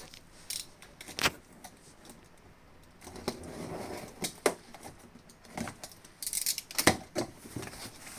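Scattered clicks and knocks of vacuum cleaner parts being handled and fitted together, with a soft rustle around the middle and a short hiss near the end.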